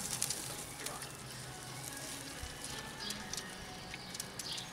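Chicken thighs sizzling faintly on a charcoal kettle grill, with scattered small crackles, as a vinegar barbecue sauce is basted onto them.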